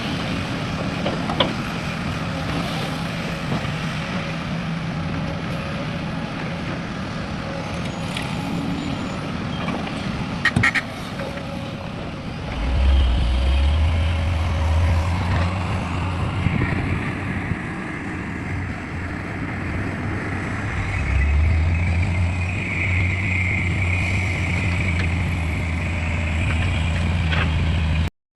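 Excavator diesel engine running, its deep hum surging under load about 13 seconds in and again about 21 seconds in, with a high steady whine through the later part and a few short clanks.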